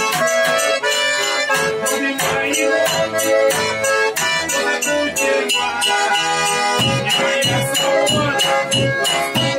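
Garmon (Russian button accordion) playing a lively folk tune in held, chord-backed notes, with a drum beaten with sticks keeping a steady beat underneath.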